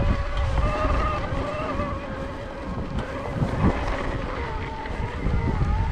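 Trek Powerfly 5 electric mountain bike being ridden on a dirt trail: the mid-drive motor whines, its pitch drifting up and down with the pedalling, over heavy wind noise on the chest-mounted camera's microphone.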